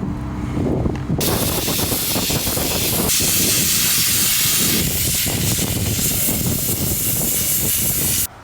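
Loud, steady hiss of a pressurised spray cleaning a dirty engine. It starts sharply about a second in, grows brighter about three seconds in, and cuts off abruptly just before the end.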